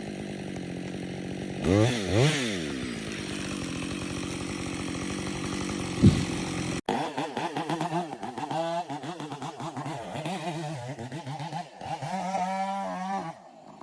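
Chainsaw engine revving up and down twice about two seconds in, then running steadily at high speed. About seven seconds in it cuts abruptly to another chainsaw whose engine pitch rises and falls repeatedly as it works.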